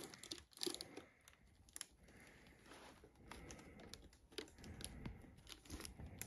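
Faint crinkling and rustling of paper and cardboard packaging, with scattered small clicks and taps, as a boxed collector's helmet is unpacked.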